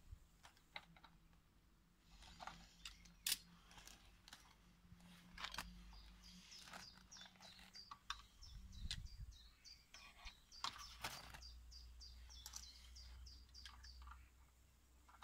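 Scattered light clicks and taps of metal pliers handling a valve's threaded pipe fitting, the loudest about three seconds in. Behind them a small bird chirps in a quick, even run of high notes from about the middle almost to the end.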